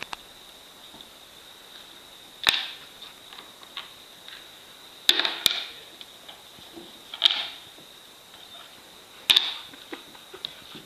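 Ice cube knocking and skittering across a hardwood floor as a puppy bats and pounces on it: about five sharp clacks a couple of seconds apart, two of them close together near the middle, each trailing off into a short slide. A faint steady high whine sits underneath.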